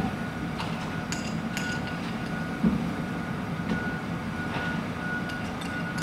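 Freight train of cement tank wagons rolling round a curve, a steady low rumble with scattered metallic clinks and a thin steady high tone that swells and fades. A single louder knock comes about two and a half seconds in.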